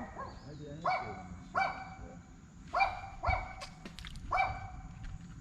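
An animal calling over and over: about five short, pitched cries spaced half a second to a second apart.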